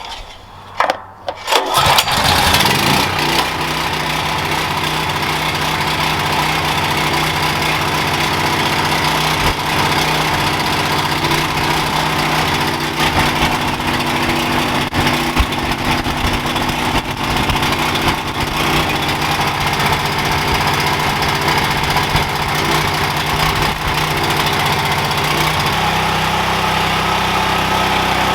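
Ryobi 6500-watt portable generator's engine pull-started on cold-start choke: one yank of the recoil cord about a second in, then it catches and runs steadily and pretty loud. Its note shifts slightly near the end.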